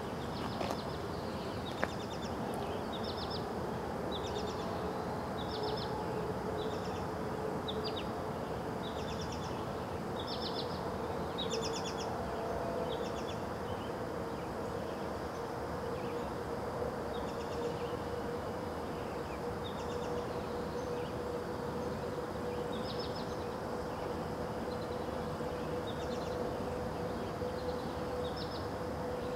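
Outdoor dawn ambience: small birds chirping in short, high calls every second or so, over a steady low background hum with a faint drone.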